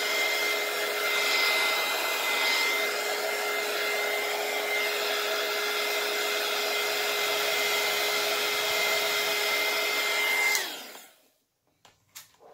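Small handheld craft heat gun blowing hot air to dry paint on a rock: a steady whirring hiss with a high whine, switched off about ten seconds in, its whine dropping as the fan winds down. A few faint clicks follow near the end.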